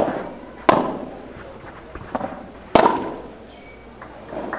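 Padel ball being struck hard by padel rackets during a rally: three loud, sharp pops with a brief ringing tail, at the very start, about 0.7 s in and near 2.8 s, with a fainter hit between the last two.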